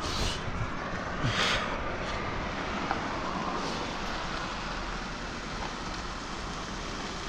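Steady road-traffic noise, with two brief rustles in the first two seconds.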